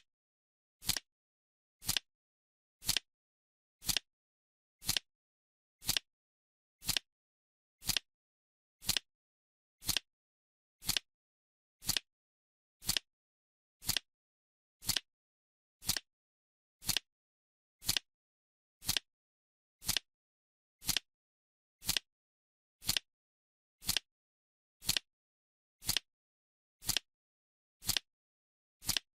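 Clock ticking once a second, a short sharp tick with dead silence between ticks: the countdown timer's added tick sound.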